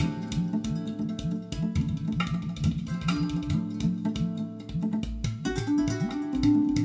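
Guitar music played back through a pair of JBL hi-fi loudspeakers, a quick run of plucked notes with no pauses.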